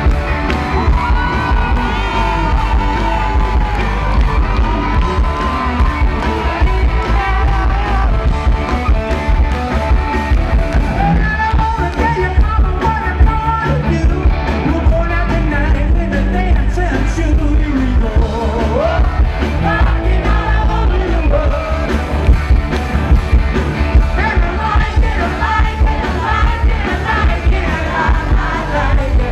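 Live rock band playing loud through the PA, with electric guitar and a lead singer, heard from the audience.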